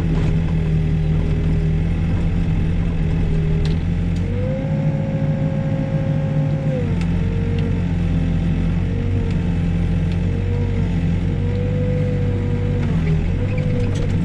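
Backhoe's diesel engine running under load while digging. A hydraulic whine rises for a couple of seconds about four seconds in, then keeps shifting in pitch as the boom and bucket work.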